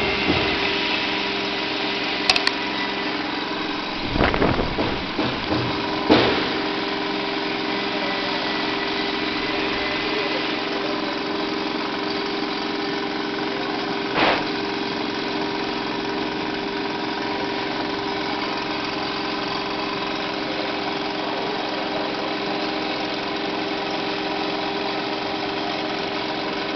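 Desktop CNC router's spindle running steadily with a constant whine while engraving a copper-clad printed circuit board. A few brief knocks break in during the first half and once near the middle.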